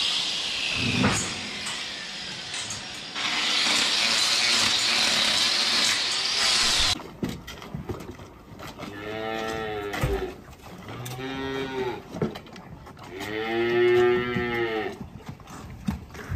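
Electric hoof-trimming grinder running against a cow's hoof, a steady high whine that sags, dips briefly and picks up again before stopping abruptly about seven seconds in. Then cattle moo three times, the last call the longest and loudest.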